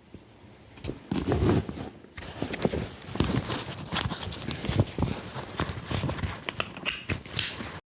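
Irregular footsteps, knocks and rustling handling noise close on backpack-mounted lavalier microphones, getting louder about a second in.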